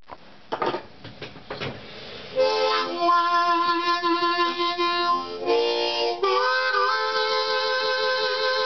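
A few handling knocks and rustles, then from about two seconds in a harmonica (blues harp) playing train-imitation style: loud sustained chords that change twice, with a bent, dipping note about six seconds in.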